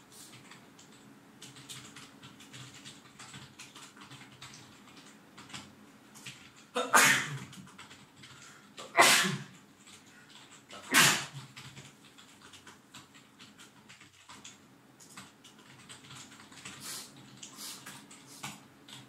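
Three loud sneezes, about two seconds apart, from a congested person with a head cold. Faint computer-keyboard typing clicks run underneath.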